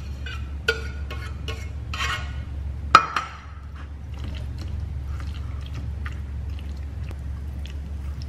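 A metal tuna can clinking against a ceramic bowl as its oil is poured out, with a sharp ringing clink about three seconds in. Then a fork stirs the tuna mixture in the bowl with light taps and scrapes.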